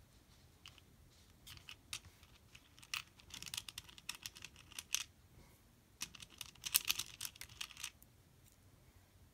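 Small plastic beads clicking against each other and the plastic compartments of a bead organizer box as fingers rummage through them, in scattered clusters of light clicks.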